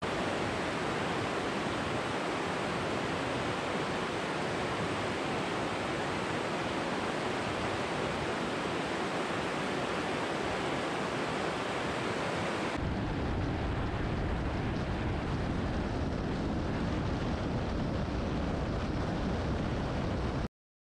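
Umpqua River rapids rushing steadily. About two-thirds of the way through, a cut brings in the lower, steady rumble of a car driving on a highway, with wind and road noise, which cuts off abruptly near the end.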